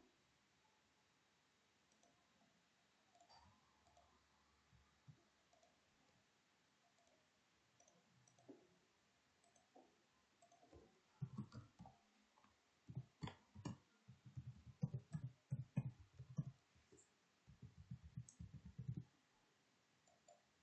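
Faint computer clicking: a few scattered mouse clicks, then from about halfway a fast run of keyboard typing lasting several seconds as an email address and password are entered.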